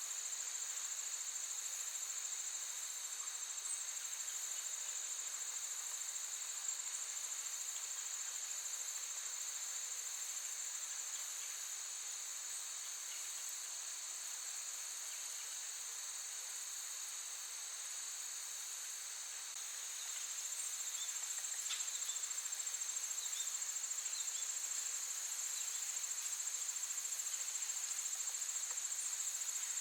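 Crickets trilling in a steady, continuous high-pitched chorus, getting a little louder about two-thirds of the way through. A few faint short bird chirps sound briefly over it around the same point.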